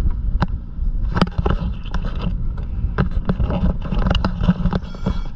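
Wind buffeting the microphone on a sailboat deck, with irregular clicks and knocks from a cockpit sheet winch and its line being worked by hand.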